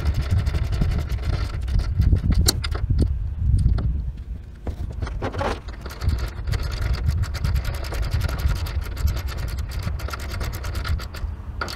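Wind rumbling on the microphone, with scrapes and sharp clicks of metal as a solar panel is fitted and clamped onto the rails of a corrugated metal roof.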